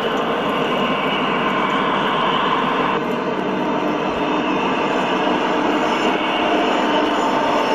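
Model diesel locomotive running past close by on the layout: a steady running noise of the train moving along the track.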